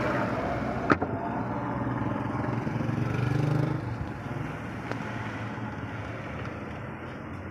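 Steady low engine-like hum, easing slightly about halfway through, with a single sharp click about a second in.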